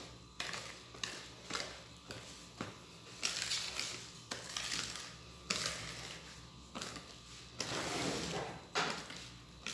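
Wire whisk stirring thick cake batter with folded-in beaten egg whites, scraping round the bowl. There are short strokes about every half second at first, then longer swishing passes after about three seconds.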